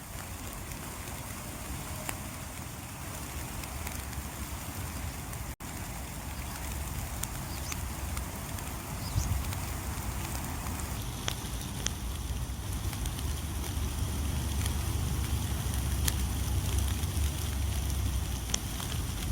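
Light rain falling steadily, with individual drops tapping sharply close by, more often in the second half, over a low rumble of wind on the microphone that grows louder. The sound cuts out for an instant about five and a half seconds in.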